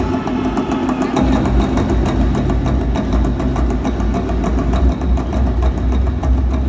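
Stage show soundtrack played loud through a theatre sound system: a deep, steady rumble with fast, dense drumbeats on top.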